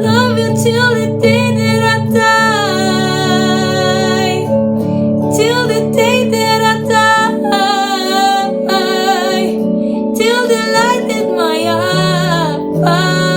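A woman's lead vocal singing over acoustic guitar, a sung pop ballad.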